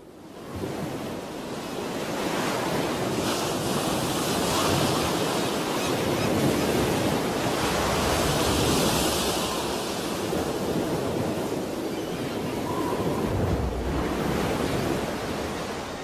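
Heavy surf breaking on the shore in a strong south-westerly wind. A dense, steady rush of waves and wind fades in at the start, then swells and eases.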